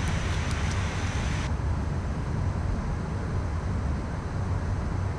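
Steady low drone of a Gulfstream business jet in flight, heard from the cockpit. A higher hiss on top drops away abruptly about a second and a half in.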